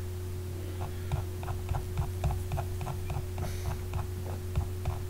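Computer mouse scroll wheel clicking in a quick run, about four or five notches a second, over a steady low electrical hum.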